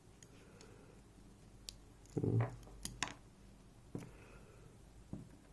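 Small metal lock parts, the pins and drivers of a disassembled pin-tumbler lock, being handled and set down, giving a handful of sharp light clicks spread irregularly, with one duller knock about two seconds in.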